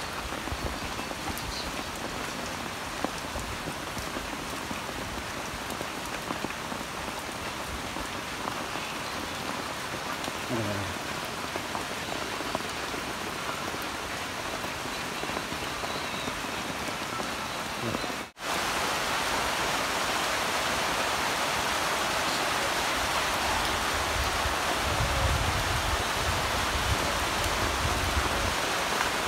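Steady rain falling on shallow water and wet ground, an even hiss with no pattern; it breaks off for an instant about two-thirds of the way through and comes back a little louder.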